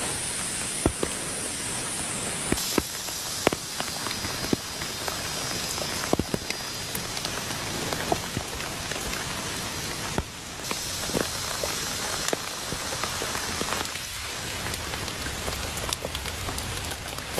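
Rain falling steadily, with scattered sharp ticks and knocks throughout.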